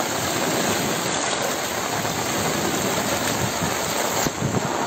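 Steady rushing noise of heavy rain and fast-flowing floodwater, with a short change in the noise just over four seconds in.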